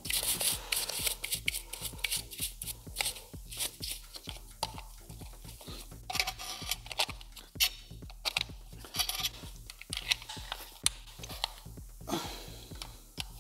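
Handling noise from reassembling the plastic air-dryer housing of a BMW air suspension compressor: irregular clicks, scrapes and rattles of plastic parts, with a screwdriver driving the housing screws back in.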